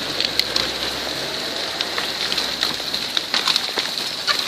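Continuous crackling and trickling hiss of soil and rock on the move in a landslide of a mine spoil heap, with many irregular sharp cracks and clicks.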